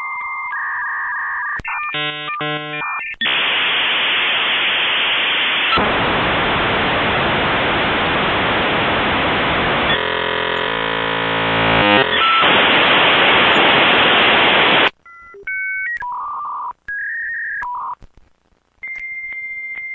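Dial-up modem handshake. Steady two-pitch tones and a quick run of warbling chirps lead into a loud, long hissing screech with a stretch of stacked tones in the middle. The screech cuts off abruptly about fifteen seconds in, followed by short tone blips and the steady tones starting again near the end.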